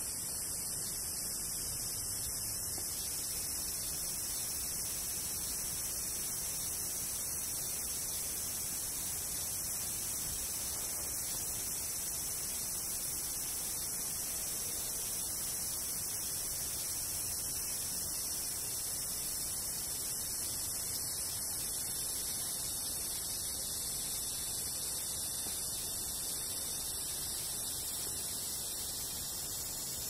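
Kaempfer cicada (niiniizemi, Platypleura kaempferi) singing: a continuous, high-pitched buzzing drone that holds steady without a break.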